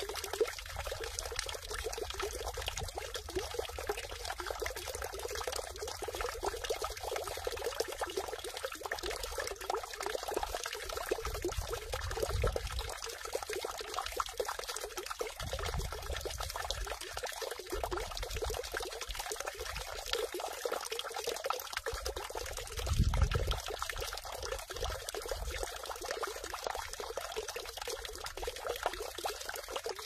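Water falling into a stone water basin (sugwak), splashing and trickling without a break. A few brief low rumbles come through, the loudest a little past the two-thirds mark.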